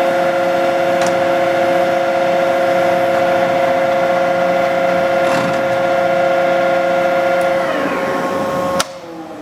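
Tarnow TUJ-50M (Toolmex) gear-head lathe running with a steady gear whine. Near the end it is shut off: the whine sags in pitch, a sharp click follows, and the sound drops away quickly as the braked spindle winds down.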